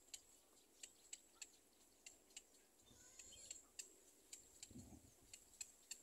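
Faint, sharp clicks at irregular spacing, roughly two a second, over a faint steady high hiss, with a soft low thump near the end.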